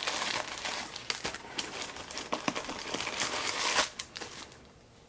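Crumpled tissue-paper stuffing crinkling and rustling as it is pulled out of the toe of a leather loafer. The crackling is loudest just before it stops, about four seconds in.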